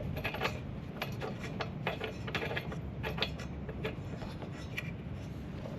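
Ratchet wrench clicking in short, irregular runs, typical of a spark plug being removed or fitted on a lawn mower's small engine.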